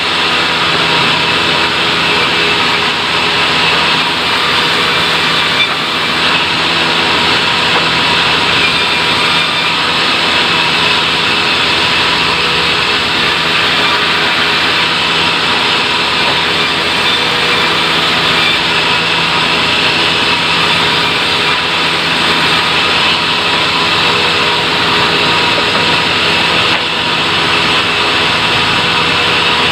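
Sawmill machinery running steadily and loudly, an even mechanical drone with steady humming tones that does not change.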